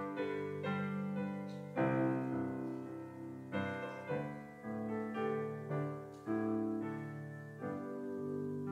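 Piano playing a slow instrumental piece, chords struck one after another and each left to ring and fade.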